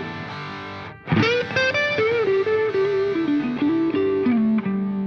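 Outro music: a distorted electric guitar playing a melodic line, stepping down through several notes to a held low note that starts to fade near the end.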